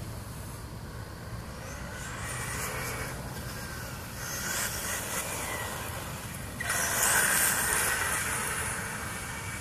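Electric 1/8-scale RC buggy (Associated RC8.2e) with a Castle Mamba Monster X and Neucastle 2200kv brushless motor, running on a 4S battery. Its whine rises and falls with the throttle and is loudest about seven seconds in.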